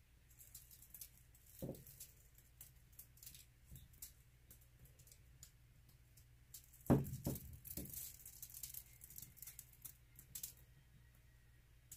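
Clear plastic sheeting crinkling and rustling as it and the wet canvas are handled, with a soft knock about two seconds in and a louder bump and burst of crinkling about seven seconds in.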